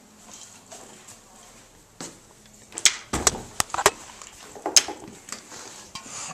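Aerosol spray-paint cans and other things being handled and put away: a run of sharp knocks and clicks, with a dull thump about three seconds in.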